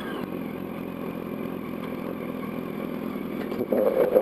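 Yamaha R1's inline-four engine running steadily at low revs as the motorcycle cruises slowly in city traffic.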